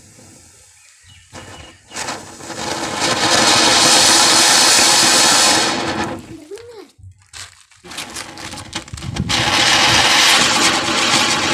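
Anar (flower-pot fountain firework) erupting, with a loud rushing hiss of sparks for about four seconds that then dies down. A short rising-and-falling whistle follows, and then a chakri (ground spinner firework) catches and hisses loudly through the last few seconds.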